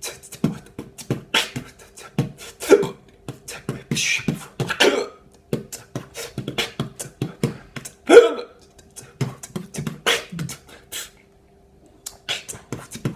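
Beatboxing with hiccups: a fast stream of mouth-made kick, snare and hi-hat clicks, broken by a few louder voiced hiccup yelps. It breaks off for about a second near the end, then starts again.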